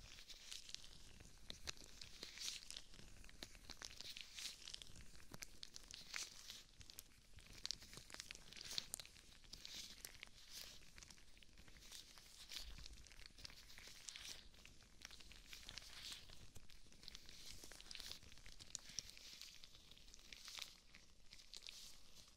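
Rubber gloves on moving hands, rubbing and crinkling close to a binaural microphone: a soft, continuous rustle dotted with many small crackles.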